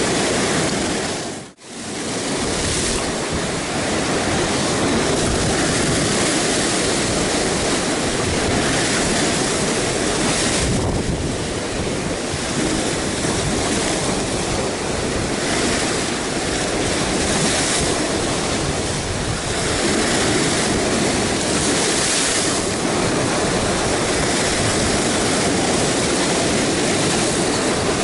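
Rough sea surf breaking and washing over the rocks right below, a dense, steady roar of churning water. The sound cuts out for a moment about a second and a half in.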